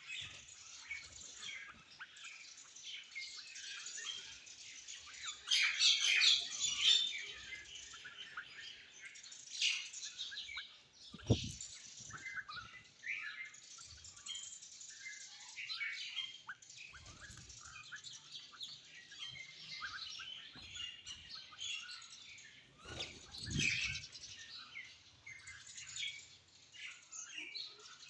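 Many small birds chirping and twittering over one another, busiest about six seconds in and again near the end. Two brief low thumps are heard, one near the middle and one later.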